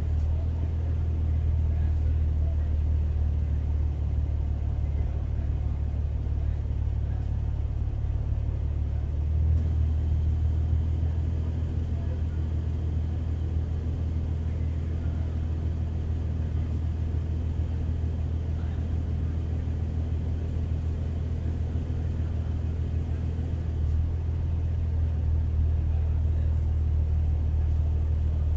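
Toyota Tacoma's engine idling with a steady low rumble. Its note shifts slightly about a third of the way in and again near the end.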